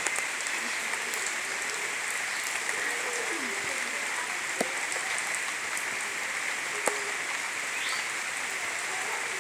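Steady rainfall hissing, with a couple of sharp drop clicks about halfway through.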